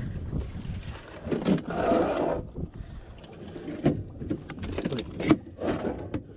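Wind rumbling on the microphone aboard a small boat at sea, with a rushing burst of noise about a second and a half in and a few sharp knocks later on.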